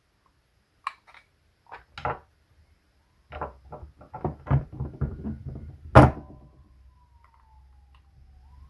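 Metal hand tools handled on a wooden table: a few light clicks, then a quick run of knocks and clinks as pliers are picked out of a pile, ending in one loud knock about six seconds in. A faint falling tone follows the knock.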